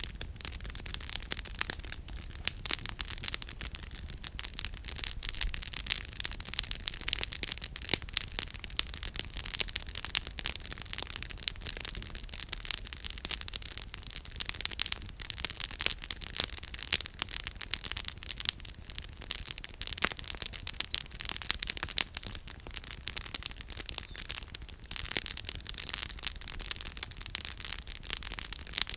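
Campfire firewood crackling and popping, with dense, irregular sharp snaps throughout over a steady low rumble.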